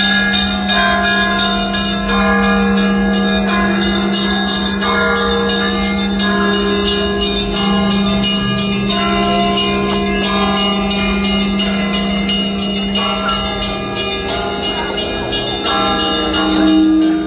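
Russian Orthodox church bells ringing a festive Easter peal, loud, with several smaller bells striking in quickly changing patterns over a steady low hum.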